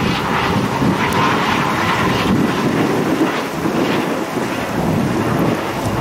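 Gusting wind buffeting the microphone: a loud, rumbling rush that rises and falls.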